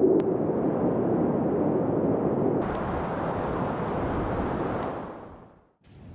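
Blizzard wind blowing, a loud, deep rush. About two and a half seconds in it turns abruptly brighter and hissier, then fades out to a moment of silence before a quieter wind comes back at the very end.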